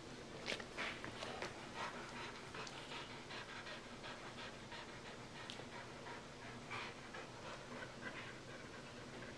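A springer spaniel panting with its mouth open, a few soft breaths a second.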